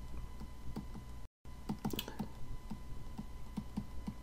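Pen stylus tapping and scratching on a tablet screen while handwriting, a string of small irregular clicks, with a brief dropout to total silence about a second in.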